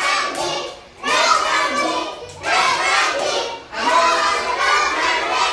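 A class of young children speaking aloud together in short chanted phrases, about four of them, each roughly a second long with brief pauses between.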